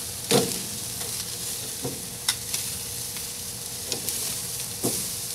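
Steaks and shrimp sizzling on a grill grate over hot coals, a steady hiss. Several sharp clicks of metal tongs on the grate cut through it; the loudest comes just after the start.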